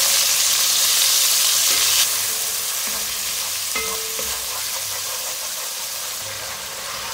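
Ginger-garlic paste frying in hot oil in a metal pot: a steady sizzle that drops noticeably in level about two seconds in, while a wooden spatula stirs and scrapes through it.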